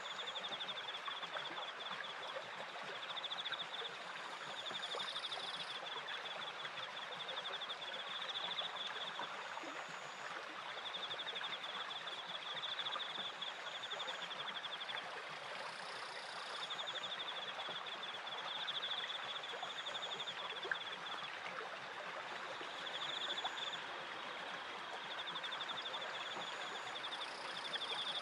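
Steady rush and splash of water at a turning wooden water wheel and its stream, with crickets chirping over it in pulsing phrases a second or two long and brief higher insect notes now and then.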